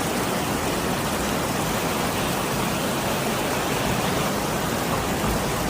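Steady, even rushing of water, a loud hiss spread across all pitches with no breaks.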